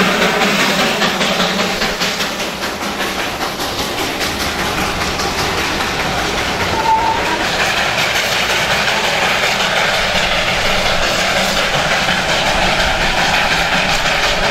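Darjeeling Himalayan Railway B-class saddle-tank steam locomotive letting off steam and running with its train: a steady loud hiss and rush of steam with the clatter of the carriages on the rails.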